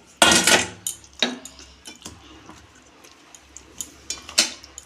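Kitchen utensils clattering and clinking against a tiffin box as washed chicken gizzards and liver are put into it for steaming. The loudest clatter comes at the very start, then scattered light clicks and ticks, with another sharp click near the end.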